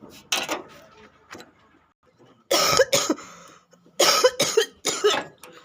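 A woman coughing several times, a short cough near the start and louder coughs about halfway through and near the end.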